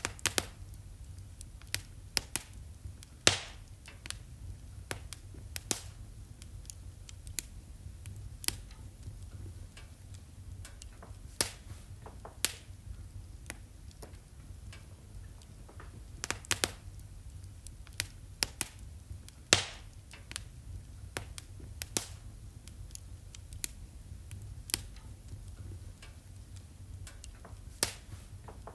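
Wood fire in a fireplace crackling, with irregular sharp pops, the loudest about three seconds in and again near the middle, over a low steady rumble.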